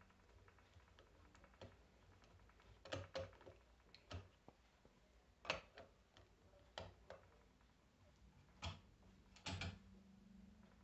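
Faint, scattered clicks and taps of metal parts and a hand tool, about eight at irregular intervals, as terminal nuts and wiring are fitted on a starter motor's solenoid. A faint hum sounds briefly near the end.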